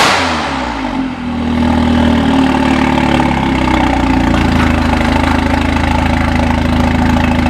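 Volkswagen Golf R's turbocharged four-cylinder engine, breathing through a new downpipe and Borla exhaust, falling back from a high rev over the first second and a half, then idling steadily.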